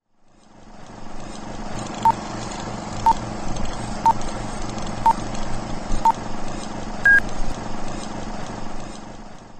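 Old-film countdown leader sound effect: five short beeps one second apart, then a single higher-pitched beep a second later. Under them runs a crackling hiss with a low hum, like a worn film print, fading in at the start and out near the end.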